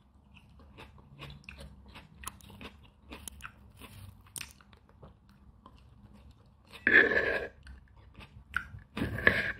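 Close-miked chewing of crunchy fruit: soft crackling bites through the first half, then two louder crunching bursts about seven and nine seconds in.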